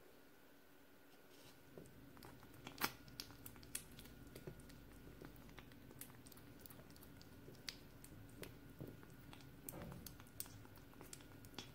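Five-week-old kitten eating soft food from a plate, newly on solid food: faint, irregular small chewing and licking clicks, with one sharper click about three seconds in.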